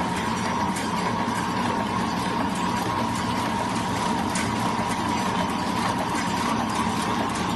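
Automatic cutlery-and-napkin wrapping machine running: a steady mechanical whir with a constant high whine and a low hum, and a few faint ticks.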